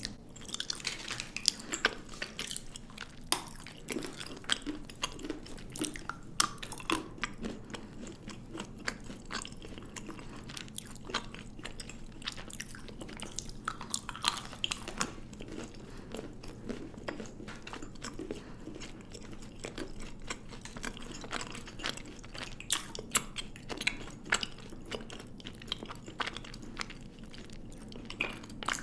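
Close-up chewing and biting of chocolate, with frequent sharp crunches and crackles.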